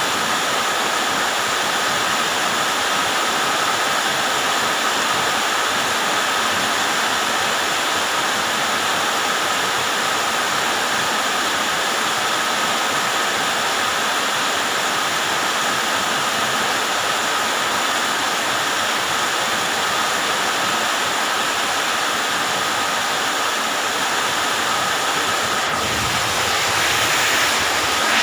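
Heavy rain pouring down steadily, a dense even hiss of water. It gets a little louder near the end.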